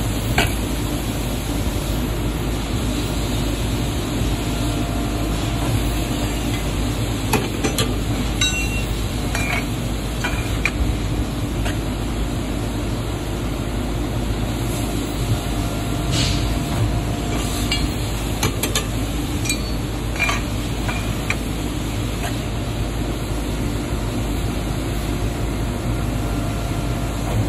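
Piranha 70-ton CNC hydraulic press brake running with a steady low hum, broken by scattered metallic clicks and clinks as parts are handled and bent in the dies.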